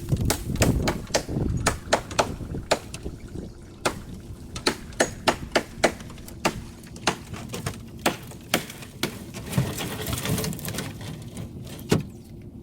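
Irregular sharp knocks and clicks, a few a second, as brush and brick-weighted bags are handled in the boat to make up the next brush pile.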